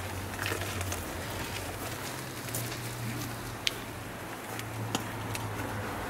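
Outdoor background noise of a standing crowd: a steady crackling hiss over a low hum, with a few sharp clicks, the loudest a little over halfway through.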